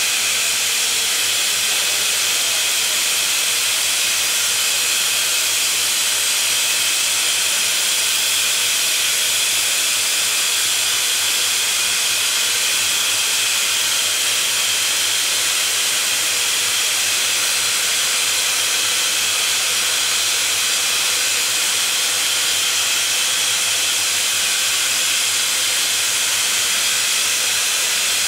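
Steady, unbroken hiss of an ESAB Hybrio hybrid laser-arc welding system running a girth weld on 36-inch X100 steel pipe, with no change in level throughout.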